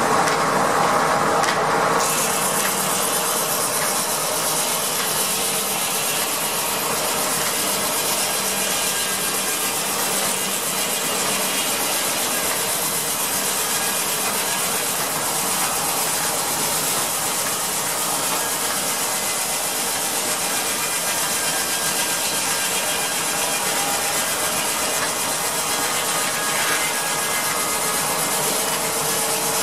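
Steam-powered circular sawmill running: the big saw blade spinning, with flat drive belts and pulleys turning, as a steady mechanical noise. The noise turns brighter and hissier about two seconds in.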